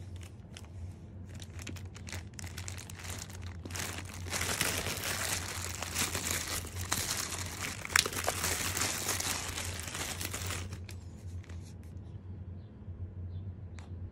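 Clear plastic wrapping crinkling and tearing as it is pulled off a plastic bottle, loudest in the middle stretch with a sharp snap about eight seconds in. The crinkling stops about three seconds before the end, leaving a few faint taps over a steady low hum.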